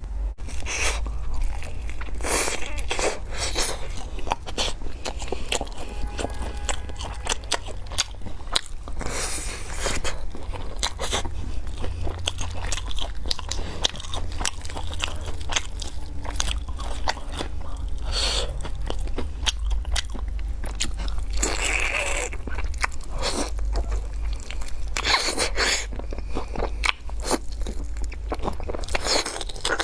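Close-miked mouth sounds of a person biting and chewing spicy small octopus and enoki mushrooms: a continuous run of wet crunches and sharp clicks, over a steady low hum.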